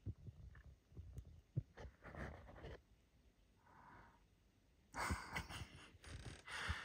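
Quiet background with breath sounds close to the microphone, twice near the end, and a few low bumps of the phone being handled.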